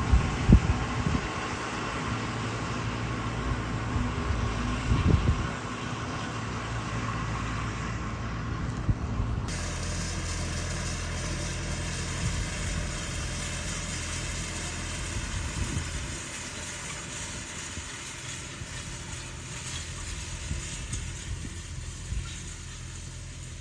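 Farm tractor engine running steadily, with a couple of knocks: one near the start and another about five seconds in.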